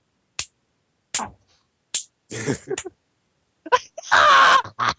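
People laughing in short, breathy, wheezing bursts, the loudest and longest one, a shrieking laugh, about four seconds in; each burst cuts off sharply to silence.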